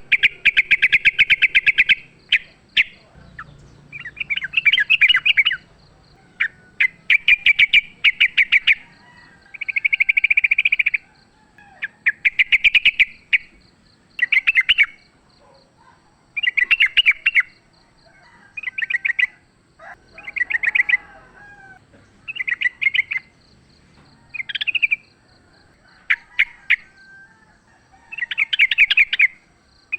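Yellow-vented bulbul singing in the agitated, combative style that keepers call 'fighting': loud bursts of rapid chattering notes, each lasting up to about two seconds, repeated with short pauses throughout.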